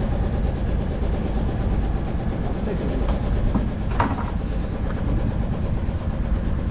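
Fishing boat's engine running steadily, a low, even rumble, with one short sharp knock about four seconds in.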